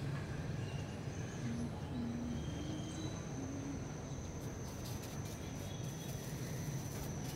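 Steady background noise with a low hum, joined about two seconds in by a thin, steady high-pitched whine, and faint ticking in the last few seconds.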